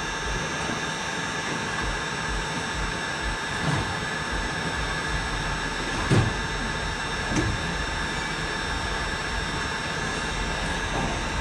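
Handheld electric heat gun running steadily, a constant rush of blown air with a steady motor whine, as it shrinks the heat-shrink sleeve on a crimped wire connector. Three short low thumps sound over it, the strongest about six seconds in.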